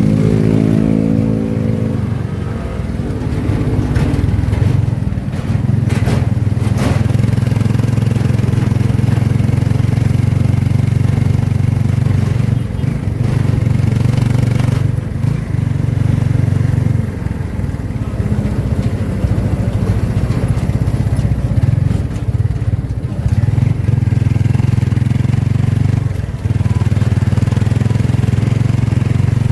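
Motorcycle engine of a Philippine tricycle running steadily as it rides through traffic, its pitch falling over the first couple of seconds, with a few short clicks or knocks about five to seven seconds in.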